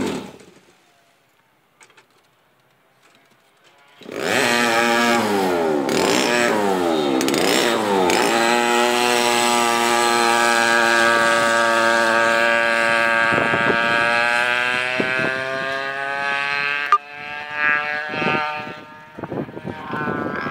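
Go-kart engine running on the track: after a few seconds of near silence it comes in loud, revving up and down several times, then holds a steady high-pitched drone at full throttle before dropping off and fading near the end.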